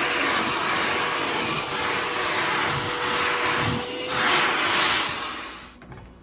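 Small shop vac running, its narrow hand tool drawn over carpet tiles to suck leftover shampoo suds out of the pile. The rush of air rises and falls as the nozzle moves, over a steady motor whine, and the vacuum winds down near the end.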